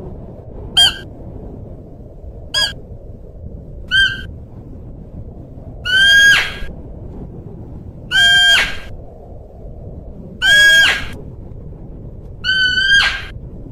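Siberian musk deer calling repeatedly: seven high, sharp calls about two seconds apart, the first three short and the later ones longer and louder, over a steady background hiss.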